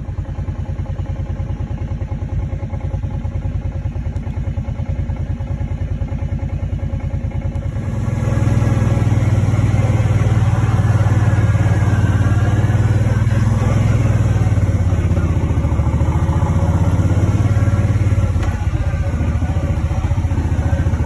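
Small vehicle engine running steadily while travelling, growing louder and heavier about eight seconds in and easing slightly near the end.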